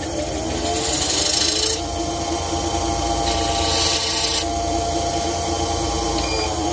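Wood lathe running, its motor whine rising over the first couple of seconds and then holding steady, while a hand-held turning tool cuts into the rim of the spinning elm disc twice, each cut a hiss lasting about a second.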